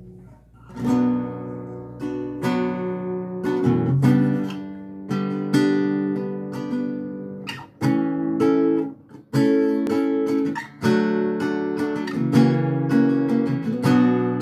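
Acoustic guitar strumming chords as a song's introduction. The first strum comes about a second in, and the playing pauses briefly a few times.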